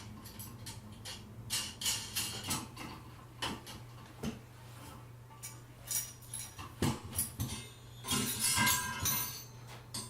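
Metal parts of a near-infrared sauna lamp assembly clinking and rattling as a lamp guard is worked through its slot on the base and its nut and washer are fitted: irregular clicks and clatters, busiest near the end, over a faint steady hum.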